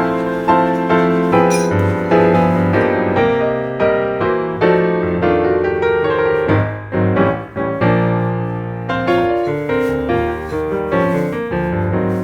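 Background piano music, a steady run of notes over a sustained bass.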